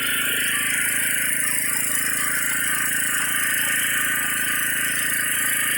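Riding lawn mower's engine running steadily, holding one speed throughout.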